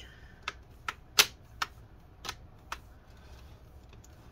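Clips of a Dell Inspiron N7110's plastic screen bezel snapping into place as fingers press along the display's edge. There are about six sharp plastic clicks in the first three seconds, the loudest a little over a second in.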